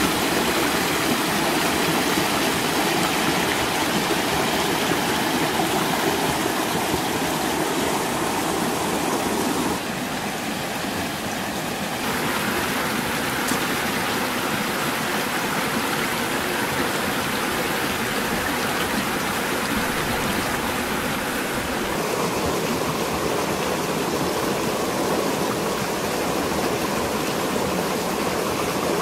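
Shallow mountain stream rushing and splashing over rocks: a steady, even rush of water, shifting slightly in tone a few times.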